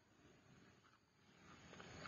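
Near silence, with a few faint light clicks from plastic plates being handled during a meal, about a second in and near the end.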